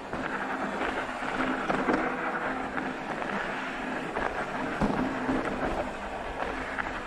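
Rocky Mountain Element C70 full-suspension mountain bike rolling over a rough trail. Its tyres make a steady rushing noise, with many small knocks and rattles from the bike passing over stones.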